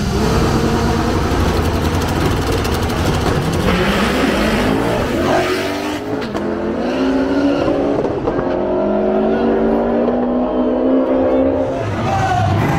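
A turbocharged Honda Civic and a Lexus IS F's V8 launch from a standstill and accelerate hard. The engine note climbs repeatedly in steps as they shift up through the gears, then cuts away near the end.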